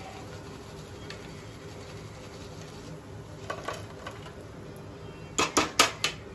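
Hot oil in a kadhai sizzling low and steady after a batch of deep-fried paneer comes out. Near the end there is a quick run of four or five sharp metal clinks as the wire spider strainer knocks against the plate and pan.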